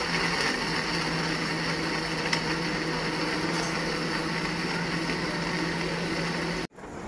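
Electric countertop blender running steadily, blending a red fruit drink in its jug, with a constant motor hum; it cuts off suddenly near the end.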